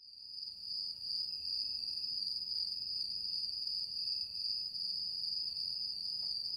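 Crickets chirping in a steady, high trill, fading in over the first second.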